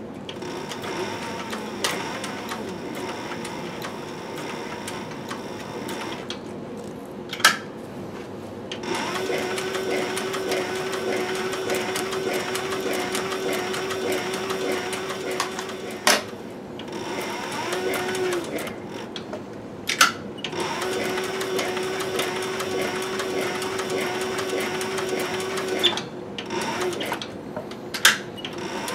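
Industrial sewing machine stitching through thick, lined leather, the motor running with a steady hum. It runs lightly at first, then in two long steady stretches, with a few sharp clicks between them.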